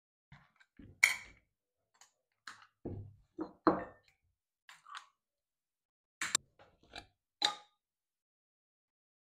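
Short, separate clicks, clinks and knocks of jar and tableware handling: a jar lid being unscrewed, a metal spoon tapping and scraping in a ceramic bowl as mayonnaise is scooped out, and a second jar being opened with its lid set down on a plastic cutting board. The sharpest knocks come about one, four, six and seven and a half seconds in.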